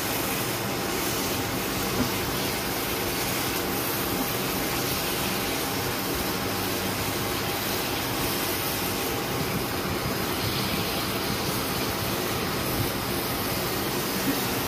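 Steady rushing kitchen noise with a faint low hum, and a few soft scrapes as a silicone spatula stirs thick mushroom curry in a nonstick frying pan.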